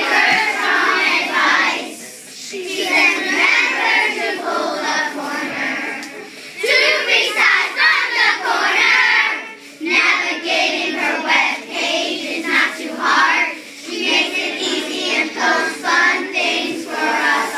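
A group of young children singing a song together in unison, in phrases a few seconds long with brief pauses between them.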